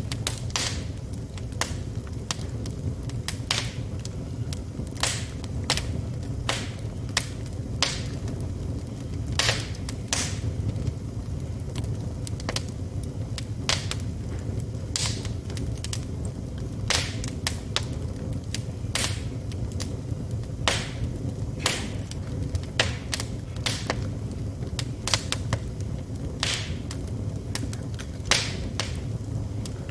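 Wood fire burning in a fireplace: sharp crackles and pops at irregular intervals, one or two a second, over a steady low rumble of the flames.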